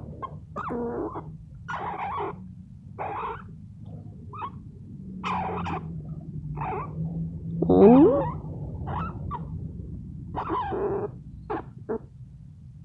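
Pet squirrel making a string of short, separate vocal sounds, about a dozen, while being petted. One longer call with a bending pitch about eight seconds in is the loudest.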